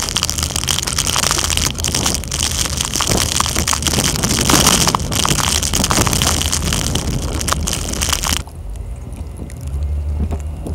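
Wind buffeting the microphone of a camera mounted on the roof of a moving Jeep, over the vehicle's low rumble on a snowy road. About eight seconds in the wind noise cuts off suddenly, leaving a quieter low engine hum.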